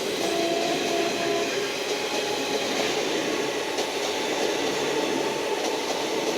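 Twelve-coach ICF EMU local train running, a steady, even rumble of the moving train.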